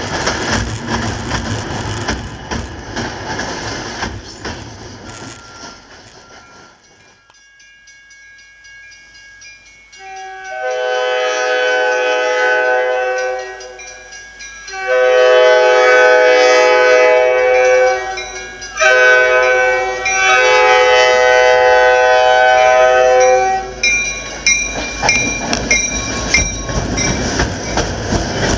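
MBTA commuter diesel locomotive sounding its multi-note air horn in the grade-crossing pattern: two long blasts, a short one and a final long one, as it approaches the station. Before that, the coaches of a passing commuter train rumble over the rails, and near the end the locomotive's engine and wheels come into the station.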